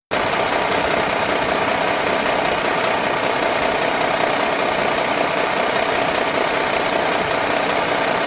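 A vehicle engine running steadily at idle, an even hum with a faint held tone and no changes in speed.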